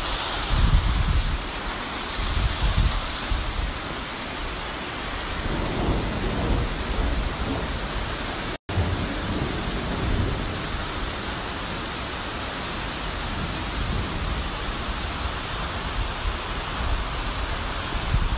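Muddy floodwater rushing over sandstone rock in a steady, loud rush of water noise, with low rumbling in the first few seconds.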